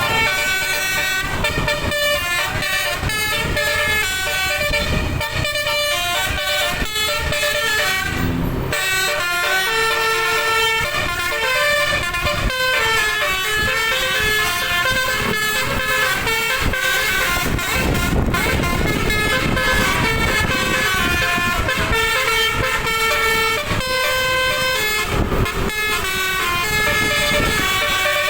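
Bus telolet horn: an air horn on a bus playing quick tunes of short, stepped tones, several pitches sounding at once and changing every fraction of a second, with a brief break about eight seconds in. A low rumble runs underneath.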